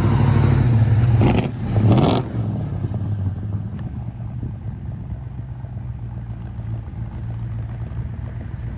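Car engine running, with two short revs about one and two seconds in, then settling to a steadier, quieter run.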